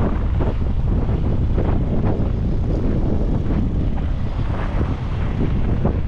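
Blizzard wind buffeting the microphone: a loud, steady low rumble with irregular gusty rushes.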